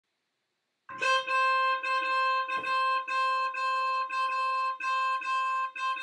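A 12 V electric snail horn sounding a single high, steady note in quick repeated blasts with short gaps, about two to three a second, starting about a second in.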